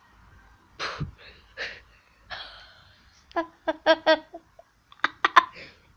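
A child's breathy, wheezy vocal noises, three short puffs, then a quick run of short pitched vocal sounds and a few sharp clicky ones, nonsense noises rather than words.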